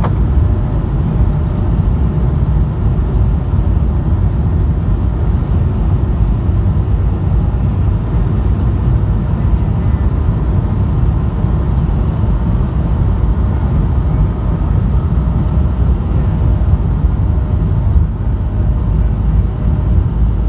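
Cabin noise of an Airbus A220 taxiing: a steady low rumble from the Pratt & Whitney geared turbofan engines at low taxi power and the rolling airframe, with a faint engine whine over it.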